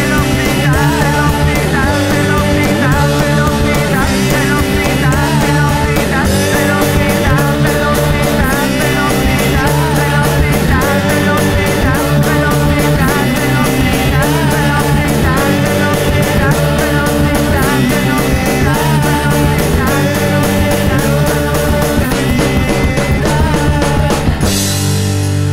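Loud rock music: a band playing with a driving drum beat and a melodic line over it. Near the end the drums stop and a held chord rings on.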